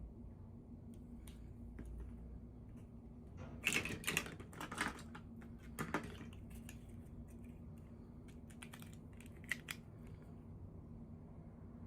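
Small plastic doll packaging and parts being handled by hand: a cluster of clicks and crinkles about four seconds in, then a few scattered clicks, over a faint steady hum.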